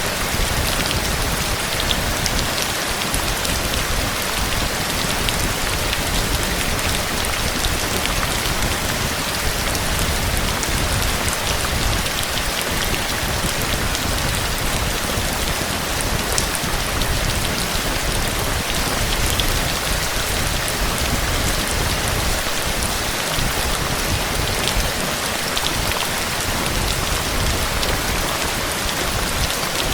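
Heavy rain falling steadily, a dense even hiss of drops with fine ticks of individual drops striking surfaces.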